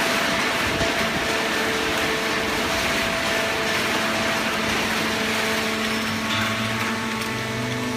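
Hydraulic carton baler running: the motor and hydraulic pump give a steady hiss and hum with a few held tones.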